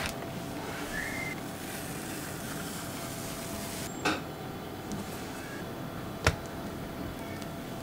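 Quiet handling of kitchen tools over a steady background hiss: a soft knock about four seconds in and a sharp click a little after six seconds.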